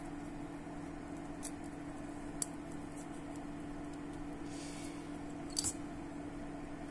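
Light metallic clicks and scrapes as a stuck piston ring is worked around and off its piston groove by hand, a few separate clicks with the sharpest pair near the end, over a steady low hum.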